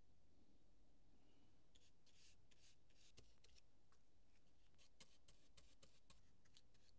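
Very faint scratching of a small glue brush spreading wood glue into the joints of wooden box sides, in short strokes from about two seconds in.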